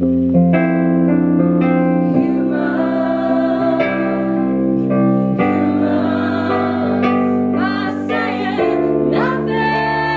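Live pop song: sustained electric piano chords played on a Nord Electro 3 keyboard, with a woman singing over them from about two seconds in.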